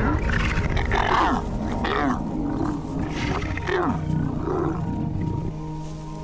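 Lions snarling and growling during an attack on prey, a run of harsh calls that bend up and down in pitch over the first four and a half seconds, with steady background music underneath.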